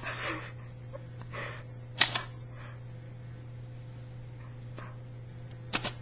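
Manual portable typewriter keys struck one at a time: two sharp clacks of the type bar hitting the paper, about two seconds in and near the end.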